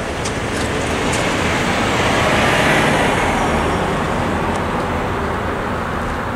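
Two cars, a police SUV and a sedan, drive over the railroad crossing and pass close by. Their tyre and engine noise swells to a peak a little before halfway and then fades away. A few light clicks come in the first second or so.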